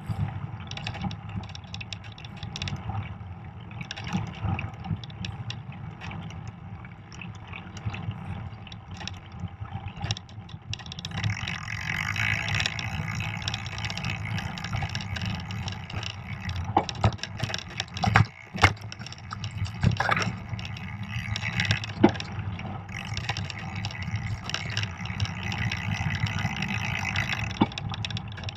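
Fat bike rolling along a snow-packed trail: a steady low rumble of the wide tyres on snow and the bike shaking, with a hiss that grows louder about a third of the way in. Sharp clicks and knocks of the bike jolting over bumps come through the middle.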